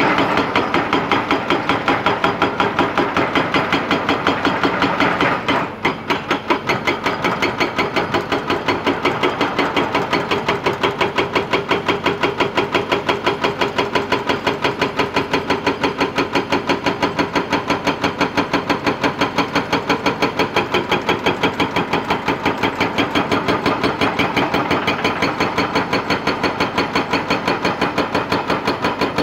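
Hydraulic rock breaker on a Kobelco excavator hammering its chisel into rock, a rapid steady pounding with the excavator's engine running under it. It pauses briefly about five or six seconds in, then resumes.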